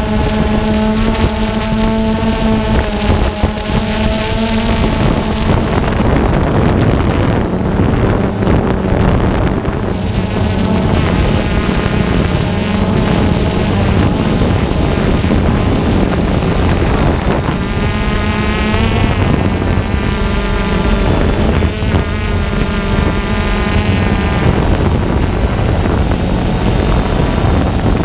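DJI Phantom 2 quadcopter's electric motors and propellers, a steady buzzing hum from close by, with the pitch wavering up and down as the motor speed changes while it climbs and manoeuvres. Wind rushes over the microphone throughout.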